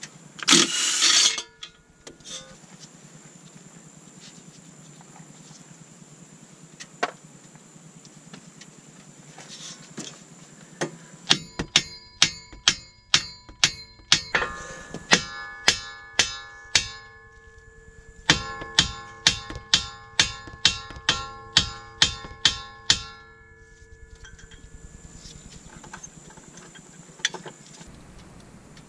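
Hammer blows ringing on the steel front suspension, about three strikes a second in three runs with short pauses, from about a third of the way in until about four-fifths of the way through. A short harsh burst of noise comes right at the start.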